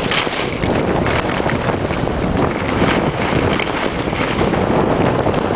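Wind buffeting the microphone in a loud, steady rush.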